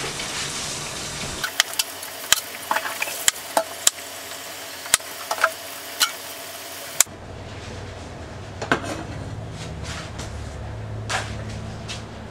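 Cleaver chopping carrots on a wooden cutting board: an irregular run of sharp chops through the first half, then only a few scattered knocks over a low hum.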